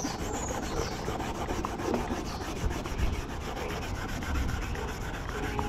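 Maroon Scotch-Brite abrasive pad rubbed back and forth by hand over a painted inner fender well, scuffing the old finish so new paint will bite.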